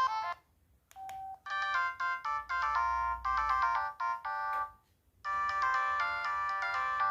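ZTE X175 mobile phone playing its built-in ringtones in turn through its small speaker. One melody cuts off just after the start. After a moment of near silence come a click and a short beep, then a bright electronic tune that plays for about three seconds. A different ringtone begins about five seconds in.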